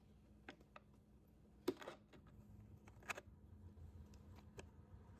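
Near silence broken by a handful of faint, sharp clicks and taps, the loudest about two seconds in and another about three seconds in: small parts knocking as the Stihl 021 chainsaw's carburettor is handled and fitted back on.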